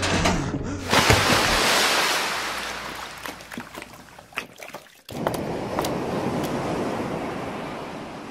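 Flood sound effect of rushing water and crashing waves. A surge hits about a second in and fades away, cuts off abruptly near five seconds, then a second rush of water slowly dies down.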